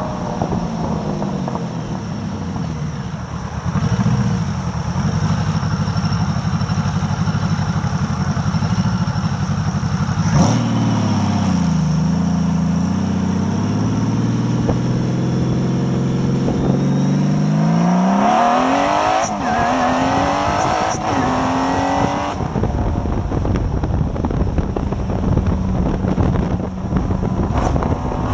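Supercharged 2000 Honda Valkyrie's flat-six engine heard from the rider's seat: the engine note dips about ten seconds in, then climbs steadily under acceleration with a higher whine rising with the revs, breaking at two upshifts. It then settles into steady highway cruising with wind noise.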